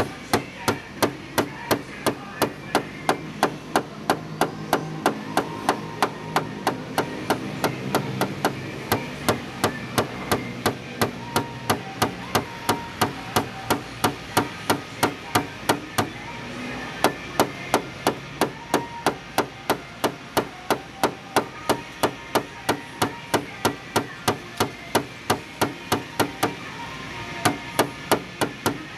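Paintless dent repair tapping: a small hammer strikes the panel in quick, even taps, about three a second, with a short pause about 16 seconds in.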